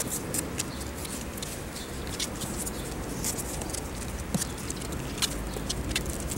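Month-old puppies scrabbling in a cardboard box: their claws make many quick, irregular scratches and taps on the box floor, over a low rumble.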